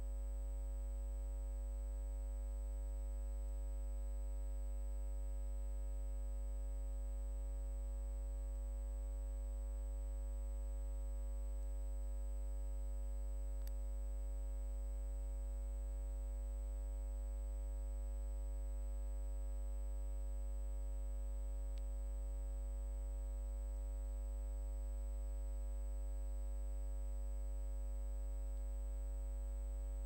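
Steady electrical hum and buzz with a thin high whine above it, unchanging throughout; no sea or beach sounds come through.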